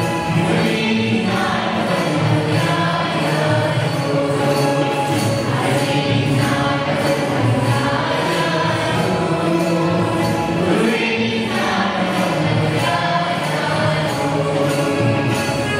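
Kannada folk song sung by a group of voices, choir-like, over instrumental accompaniment, going on without a break.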